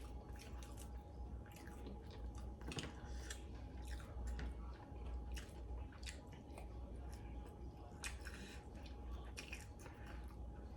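Close-up chewing and biting sounds of someone eating saucy chicken wings: wet, irregular mouth clicks and smacks several times a second.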